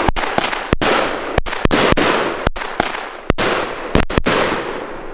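Firework battery firing aerial shots, each bursting with a sharp bang. There are about ten bangs at irregular spacing, each echoing away into the next.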